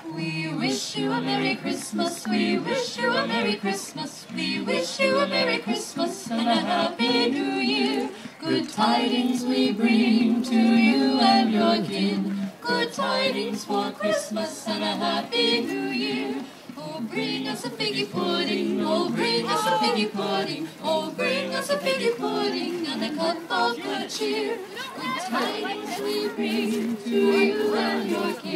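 A small group of Christmas carolers singing a cappella in mixed men's and women's voices.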